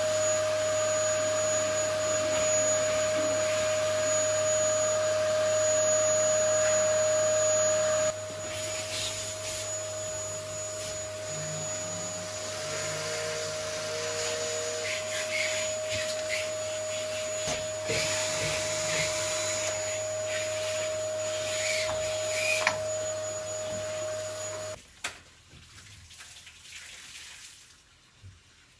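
Vacuum cleaner running steadily with a constant whine over a low hum. About eight seconds in it drops in level, and it stops a few seconds before the end.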